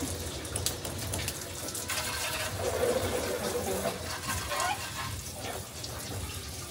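Water running from a garden hose and splashing onto a motor scooter and the wet paving beneath it, a steady hiss.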